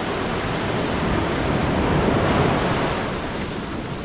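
Ocean surf washing onto a beach, swelling to a peak about halfway through and then easing off, with wind on the microphone.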